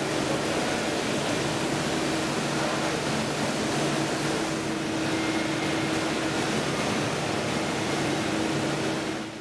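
Steady hum and hiss of food-processing plant machinery with a constant low drone, cutting off abruptly near the end.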